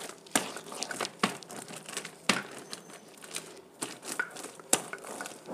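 Plastic sheet crinkling and crackling as a wooden rolling pin presses and rolls a layer of hot jaggery-and-chickpea chikki flat beneath it, with irregular sharp clicks now and then.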